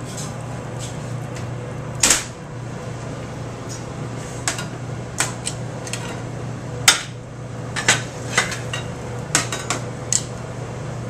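Metal kitchenware clinking and clanking: tongs, a steel pan and a ring mould knocking against a steel counter and a plate, in a dozen or so sharp knocks, the loudest about two seconds in and near seven seconds. A steady low hum runs beneath.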